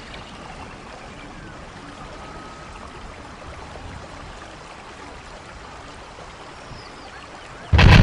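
A soft, steady rushing noise, then a sudden loud explosion near the end, its deep rumble carrying on.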